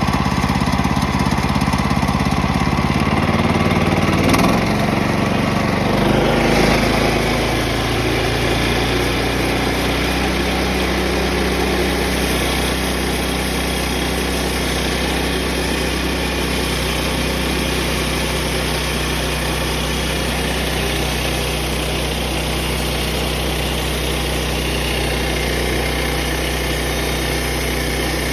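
Small gasoline engine of a Woodland Mills portable bandsaw sawmill, running continuously. The engine note shifts between about four and seven seconds in, then holds steady.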